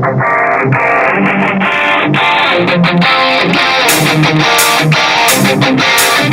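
Instrumental beat with plucked guitar and a steady rhythm. Its top end opens up gradually over the first four seconds, like a filter sweep, until bright drum hits come in.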